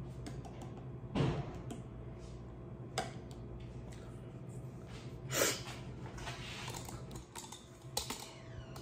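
A few scattered knocks and clicks from handling a knife and utensils at the counter, the loudest about a second in and again past the middle, over a steady low hum.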